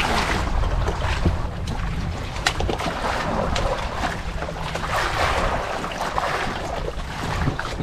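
Wind buffeting the microphone over the wash of sea waves, swelling and easing, with a few small sharp clicks.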